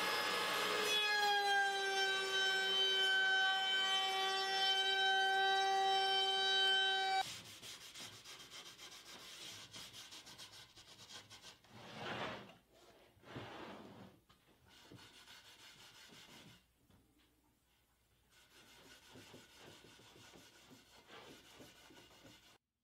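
Router in a router table spinning with a steady high whine, its pitch dipping slightly about a second in as the bit takes a chamfer cut along the edge of a maple board; the whine cuts off abruptly about a third of the way through. After that come faint rubbing and sliding sounds of the board being handled on the table top.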